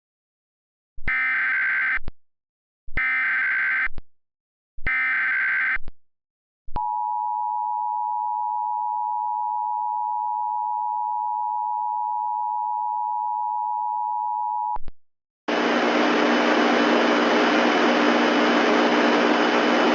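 Emergency Alert System tones. Three short bursts of SAME header data, each about a second long with short gaps between them, carry the coded alert. They are followed by the steady two-tone attention signal, held for about eight seconds, which announces that an emergency alert message is about to be read. About a second after the attention signal stops, a loud steady hiss with a low hum begins.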